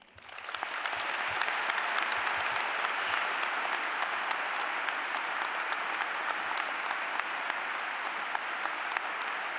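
Large audience applauding, a dense patter of many hands clapping that swells up within the first second and then holds steady.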